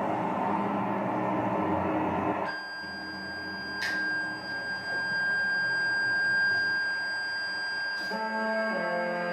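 A broad noisy drone breaks off about two and a half seconds in and gives way to a steady, high, pure electronic tone with fainter higher tones over it and two short clicks. Near the end, low sustained musical tones come in, changing pitch in steps.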